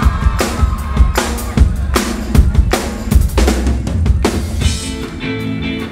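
Live band playing loud, the drum kit loudest: hard kick and snare hits at a steady beat, about two to three a second, over a heavy bass.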